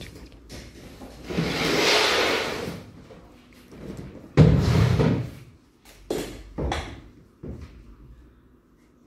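Plastic stools scraped and knocked about on a hard stage floor: a long scrape, a loud knock about four and a half seconds in, then a few shorter knocks as one is set down and sat on.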